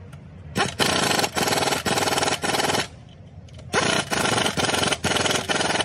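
Power ratchet spinning down the nuts on a new engine mount's studs, in two runs of about two seconds each with a few short stutters in each run.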